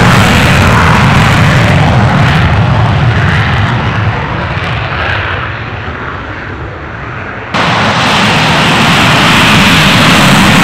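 Fighter jet engine running in full afterburner, a loud, dense rumble. It fades from about four seconds in as the jet moves away, then jumps abruptly back to full loudness a couple of seconds before the end.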